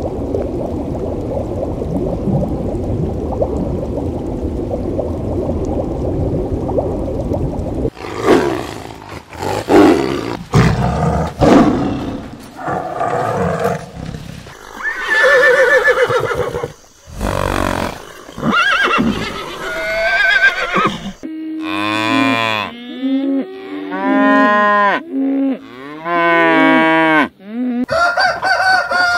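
A string of different animal calls and cries, loud and broken by short gaps, after about eight seconds of a steady low rushing noise; chickens are calling near the end.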